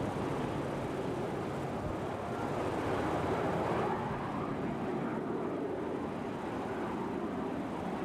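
Jet engines of a Boeing 737 airliner running as it taxis: a steady, even engine noise that swells slightly about halfway through.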